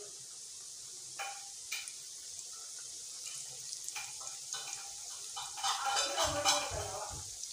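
Mawa-stuffed pidikiya (gujiya) deep-frying in hot oil in a kadhai: a steady sizzle, with a few light knocks and a busier, louder stretch of sizzling and stirring near the end.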